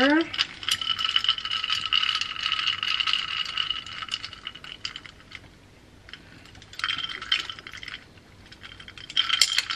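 Metal straw stirring ice cubes in a glass mason jar of iced coffee: quick clinking and rattling of ice against glass and metal. A long run of stirring for about four seconds, then a pause, and two shorter bursts later on.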